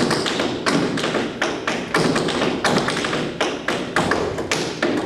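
Tap dancer's shoes striking a wooden floor in a fast, uneven run of taps and heavier stamps, with no music behind them.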